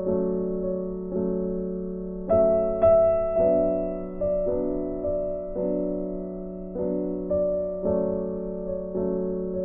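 Background piano music: soft, slow chords, each struck and left to fade.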